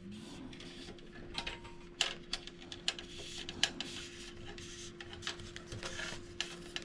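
Scattered light clicks and rustles of small bicycle parts being handled at the workbench during assembly, over a faint steady hum.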